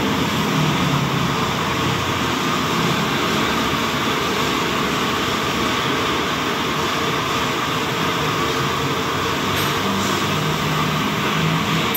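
Steady, loud mechanical noise: a constant rushing hum that runs on without a break.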